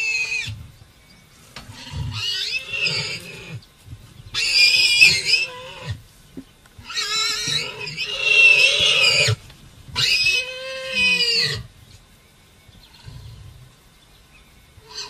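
Warthog squealing in distress as a lion attacks it in its burrow: a run of high-pitched squeals, each one to two seconds long with short gaps, over low scuffling thuds.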